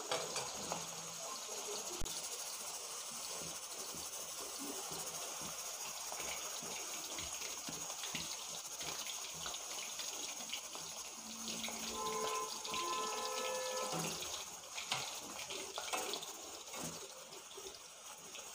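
Chicken pieces deep-frying in hot oil in an iron kadhai: a steady sizzle of bubbling oil, with a few sharp clicks. The chicken is golden brown and fully fried. About twelve seconds in, a brief run of short pitched tones sounds over the sizzle.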